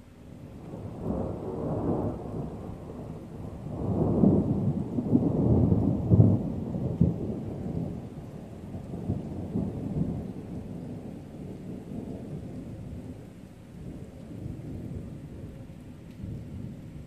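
Rolling thunder: a deep rumble that builds about a second in, swells loudest between about four and six seconds in with a sharper crack near six, then slowly dies away in fainter rumbles.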